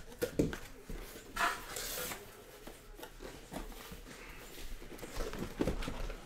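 A sealed cardboard shipping case being opened by hand: cardboard knocking and scraping, with a brief rasping rustle of tape or flaps about a second and a half in and a few more knocks near the end.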